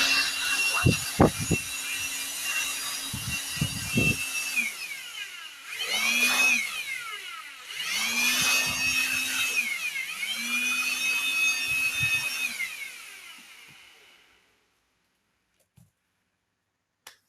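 Electric air blower running in bursts, blowing dust out of a laptop. Its motor whine spins up and winds down four times, with a few knocks in the first few seconds.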